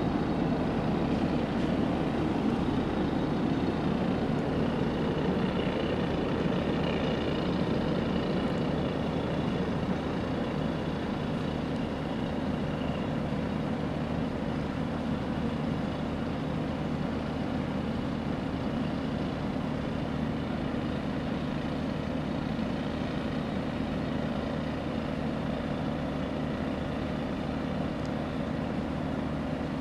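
A steady low mechanical drone, like an engine running, with faint high tones for several seconds in the first half.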